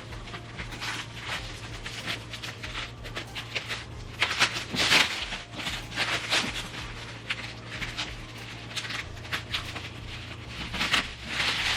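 Scissors and hands working at a tightly sealed cardboard shipping box: irregular scraping, rustling and tearing of cardboard and packing tape, over a low steady hum.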